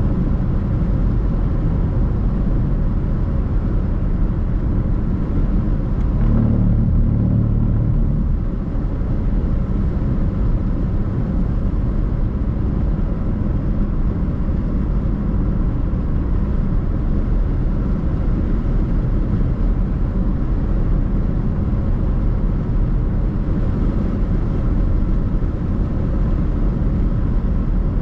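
Car driving along, a steady low rumble of road and engine noise, with a brief louder low hum about six seconds in.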